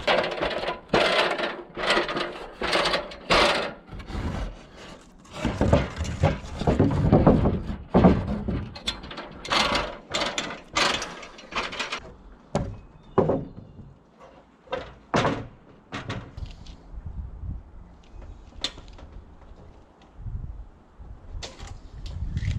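Irregular knocks and clunks, coming thick and loud for about the first twelve seconds, then sparser and fainter.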